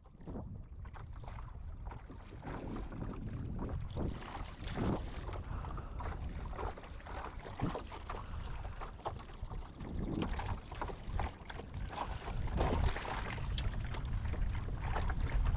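Wind buffeting the microphone over water splashing and lapping against a moving kayak's hull, in irregular slaps. It fades in at the start and grows a little louder near the end.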